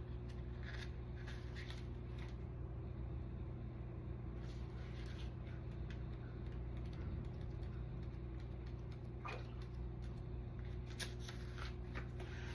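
Faint handling noises of cards and paper, scattered light rustles and taps, over a steady low electrical hum.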